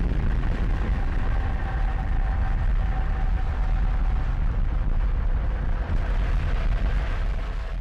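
Volcanic eruption sound effect: a loud, continuous deep rumble of the blast and ash cloud, starting to fade near the end.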